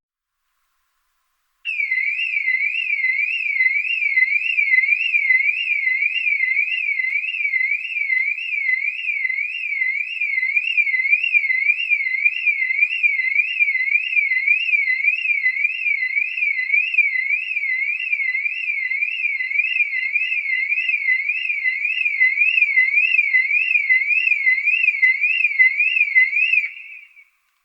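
Car alarm siren sounding: a high electronic tone sweeping rapidly up and down, about two sweeps a second. It starts a couple of seconds in and cuts off near the end.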